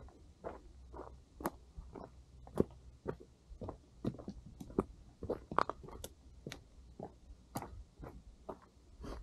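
Footsteps on a dry dirt and rocky trail, about two steps a second.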